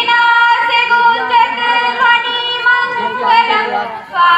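Female voices singing on stage, with long held notes.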